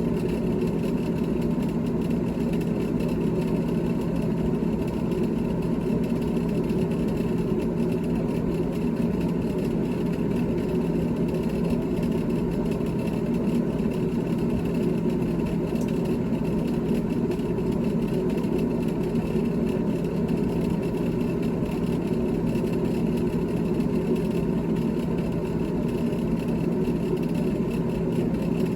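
GE GTH18XCTZRBB refrigerator running: a steady mechanical hum with several fixed tones that does not change.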